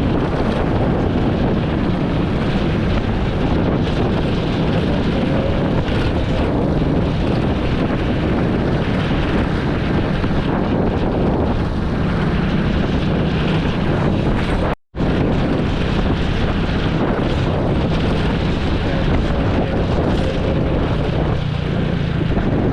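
Vehicle engine running steadily under heavy wind rush on the microphone while riding along a road. The sound cuts out for a split second about fifteen seconds in.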